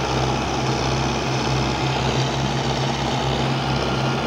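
Belarus tractor's diesel engine running steadily under heavy load as it pulls a loaded earth trolley out of soft ground, with an even, unchanging note.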